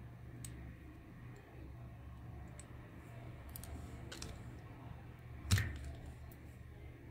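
Light clicks and taps of a plastic toy shell and its wires being handled on a workbench, with one louder knock about five and a half seconds in, over a steady low hum.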